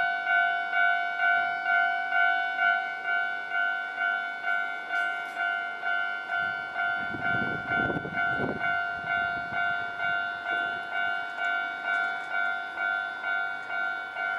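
Japanese level-crossing warning bell ringing, evenly repeated dings at about three every two seconds. A Nankai Main Line train rumbles across for a couple of seconds about halfway through.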